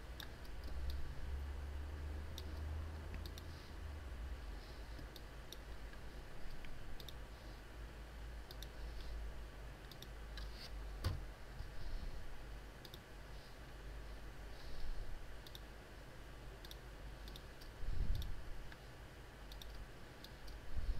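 Scattered clicks of a computer mouse and keyboard, irregular and fairly faint, with a sharper click about halfway through and a small cluster near the end, over a low steady hum.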